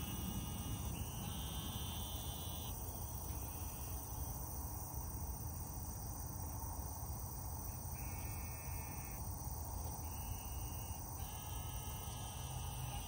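Insects calling in repeated high trills about a second long, starting and stopping several times, over a steady low rumble.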